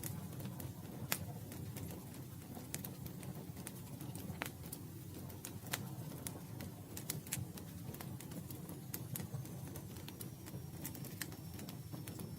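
Campfire burning with a steady low rumble and irregular sharp crackles and pops from the wood, a few louder snaps among many small ticks.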